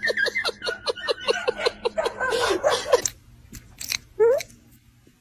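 Rapid run of short squeaky yips, about six a second, over music. After a break, a few soft clicks and one short falling whimper from a sleeping puppy.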